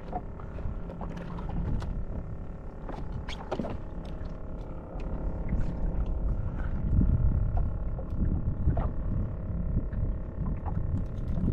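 Wind rumbling on the microphone and small waves slapping the hull of a boat on choppy open water, over a steady motor hum. Scattered light clicks and knocks; the rumble grows louder about five seconds in.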